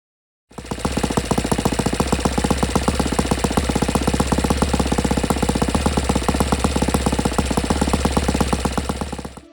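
Saito FA-120S four-stroke glow model aircraft engine running steadily with a rapid, even firing beat. It starts abruptly about half a second in and fades out just before the end.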